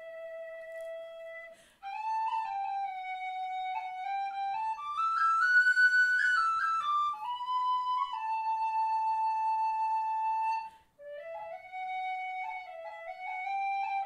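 Background music: a solo melody on a flute-like wind instrument, in three phrases with short breaks between them, climbing to its highest notes about halfway through.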